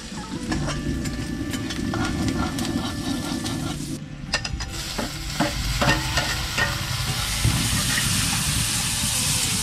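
Mushrooms frying and sizzling in a steel wok, with a metal spatula stirring and scraping and several sharp clicks against the pan. About seven seconds in, the sizzle grows louder and hissier as chopped tomatoes go into the hot pan.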